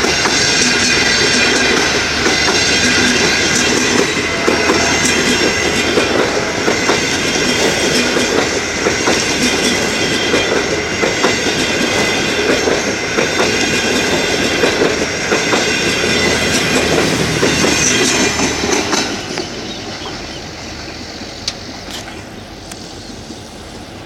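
Passenger train coaches rolling past, steel wheels clacking over the rail joints with a high wheel squeal. The sound falls away about nineteen seconds in, leaving a quieter tail with a few clicks.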